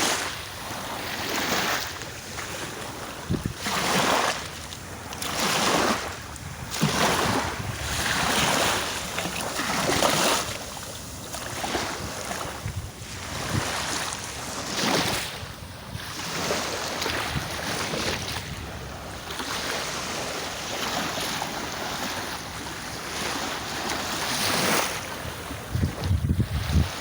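Sea waves breaking and washing in, the surf swelling and ebbing every second or two, with wind buffeting the microphone in low rumbles near the end.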